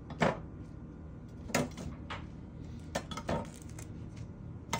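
Blocks of dry instant ramen noodles set down in a glass baking dish: about six short, light knocks and scrapes against the glass, the loudest near the start and about a second and a half in.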